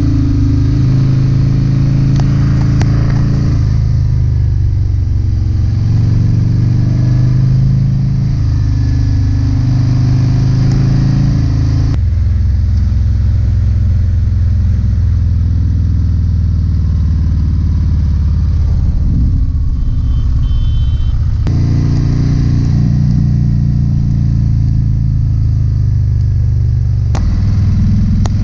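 Harley-Davidson CVO ST's V-twin engine running under way, heard loud and steady, its note shifting up and down several times through the ride.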